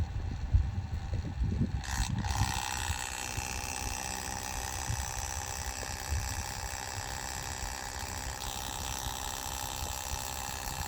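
Thick 75W-90 GL5 gear oil being pumped into a front differential, with a steady, liquid pumping noise as the diff fills.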